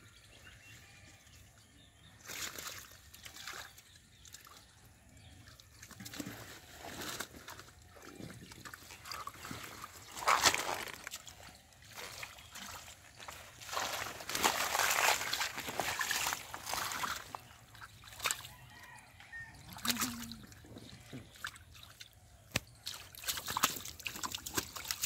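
Hands digging and sloshing through shallow muddy water and grabbing a catfish, with irregular splashes and wet slaps, loudest about ten seconds in and again a few seconds later.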